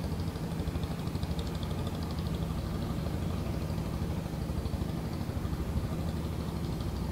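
Small lake boat's engine running steadily, a low even hum, with a faint high rapid pulsing over it that fades out about three seconds in.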